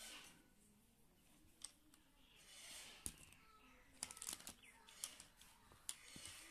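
Faint clicks and taps of plastic action figures being handled and set down on a tabletop among other plastic toys, a quick cluster of them about four seconds in.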